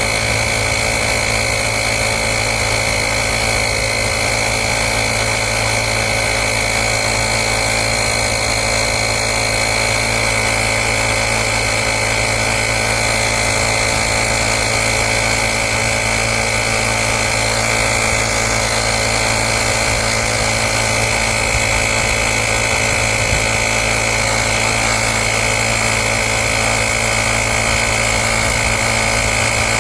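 Small portable air compressor of a UIBI X5 jump starter running steadily while inflating a car tyre, a constant motor-and-pump drone that is a bit noisy.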